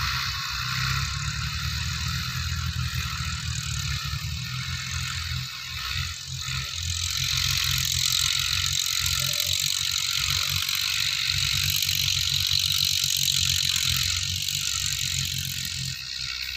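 Massey Ferguson 185 tractor's diesel engine running steadily with its rotary tiller attached, heard at a distance under a strong, even hiss.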